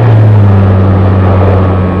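HobbyKing Sky Eye's electric motor and propeller running, heard from the onboard camera, with wind rushing past the airframe. The motor hum drops in pitch at the start as the throttle is eased back.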